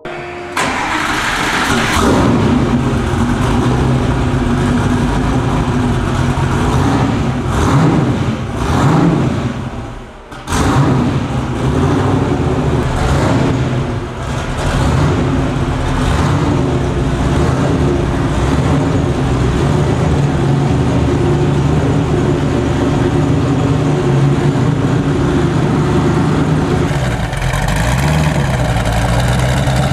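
Twin-turbo 427 cubic-inch LSX V8 of a Factory Five GTM, revved in a series of blips through the first half, then running steadily and settling toward idle near the end.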